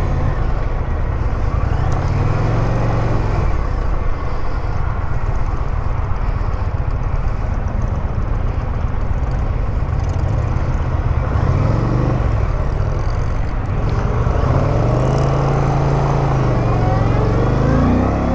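Indian Pursuit's PowerPlus V-twin running under way, its engine note rising and falling several times as the throttle is opened and closed during slow manoeuvring.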